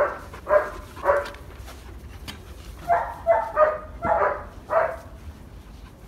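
Large shepherd-type dog barking at its handler: three quick sharp barks, a pause of about a second and a half, then five more.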